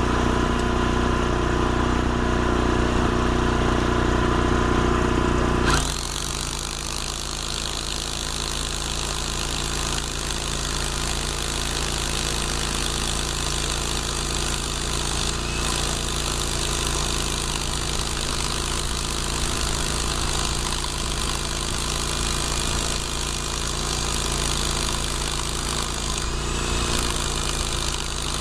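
Corded rotary hammer drill boring a 25 mm anchor hole into concrete, a steady hammering drone with a high rasp. For the first six seconds a different steady engine-like hum runs, then cuts off sharply as the drilling takes over.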